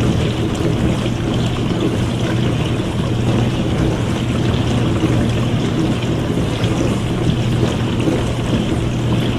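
Dishwasher running a wash cycle: a steady low motor hum under the constant rush of water spraying inside the tub.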